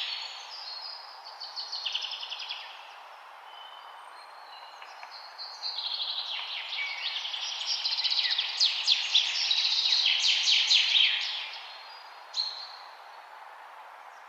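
Small songbirds chirping and trilling in quick runs over a steady background hiss. The calls are busiest in the middle, thinning out for a few seconds early on and again near the end.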